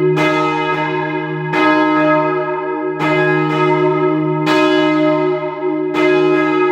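The heavy back four bells of a twelve-bell church ring (9th to 12th, tenor about 32 cwt) being rung up from the down position. Strokes overlap irregularly, a strong strike about every second and a half with fainter ones between, and each bell rings on under the next.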